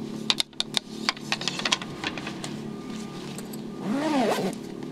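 Light, irregular clicks and taps as a kitchen knife is handled against a padded zippered soft case, over a steady low hum. A short voice-like sound comes about four seconds in.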